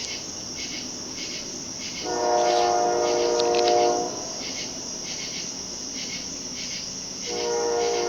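Norfolk Southern locomotive horn sounding two blasts, one about two seconds long starting two seconds in and another starting near the end, over crickets chirping steadily.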